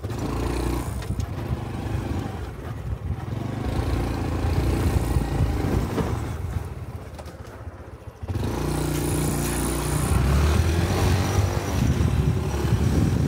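A Honda Cub's 125 cc single-cylinder engine running on the move, with wind noise on the microphone. It eases off and quietens about seven seconds in, then picks up sharply just after eight seconds as the bike accelerates again.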